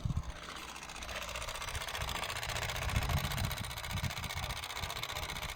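Steady whirring hiss from a Renault Laguna 3 1.5 dCi after its engine has been switched off, setting in just after the start and holding steady, with an irregular low rumble underneath. It is the abnormal after-shutdown noise the owner is recording.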